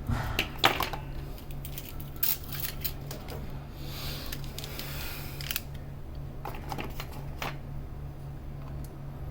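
Small clicks and taps of hand tools and small parts being handled on a pod vape during repair, with a brief scrape about four seconds in, over a steady low hum.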